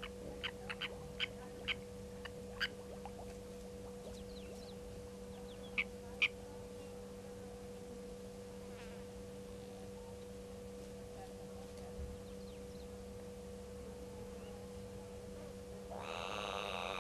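Steady low hum under quiet bush ambience, with a run of short sharp ticks in the first few seconds and two louder ones about six seconds in. Near the end, a fly buzzes close to the microphone for a couple of seconds.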